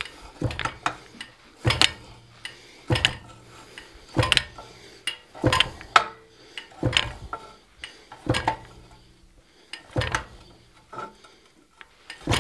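Hand-swung fly press striking a 3/4-inch iron bar again and again, about once every second and a half, each blow a sharp metallic clank as the tool cuts a groove into the bar.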